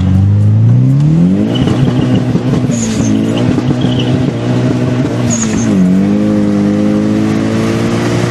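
Turbocharged Honda K20A3 four-cylinder of a 2002 Civic Si at full throttle from a first-gear roll, revs climbing over the first second and a half. The pitch then holds, dipping briefly twice, with a short high hiss near each dip.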